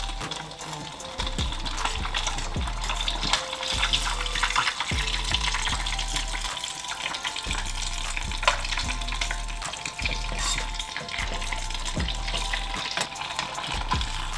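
Hot oil sizzling and crackling around battered corn dogs deep-frying in a small pot, with a sharp click about eight seconds in. Background music plays underneath.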